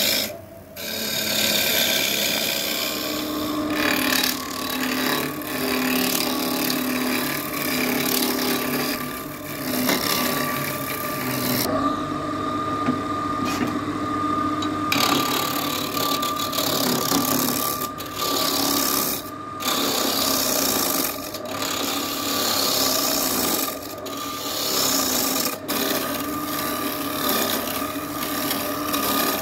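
Wood lathe running with a steady hum while a tool rasps against the spinning wood, with a few short breaks where the tool comes off the wood; the longest lasts about three seconds, about twelve seconds in.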